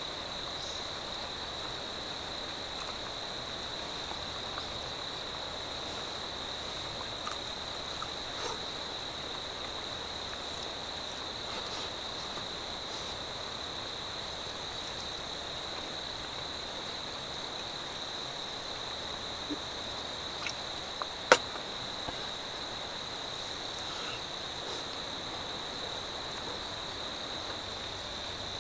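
Crickets singing in one steady, high-pitched drone, with a few faint clicks and one sharp click about two-thirds of the way through.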